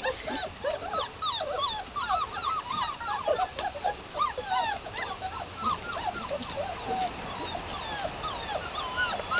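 Several red Standard Poodle puppies whimpering and yipping, a steady stream of short, overlapping high squeaks and whines that rise and fall in pitch.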